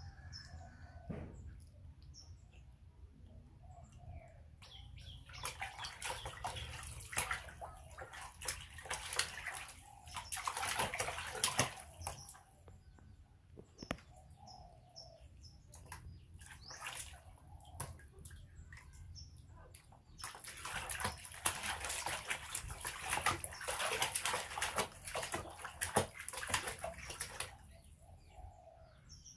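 Water splashing and sloshing in a plastic basin as a young macaque paddles and washes itself in it, in two long bouts; faint bird chirps in the quieter gaps.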